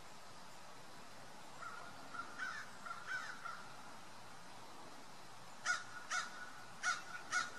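Bird calling: a few faint harsh calls about two seconds in, then four short, sharp calls in the last two seconds, with a faint steady high note running beneath them.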